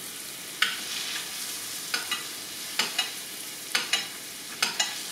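Butter frying around scallops in a skillet, a steady sizzle, with a spoon scraping and tapping the pan roughly once a second as the hot brown butter is basted over them.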